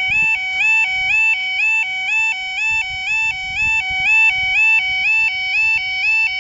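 Level crossing yodalarm sounding its two-tone warning, a low and a high note alternating about twice a second without a break, as the barriers begin to rise.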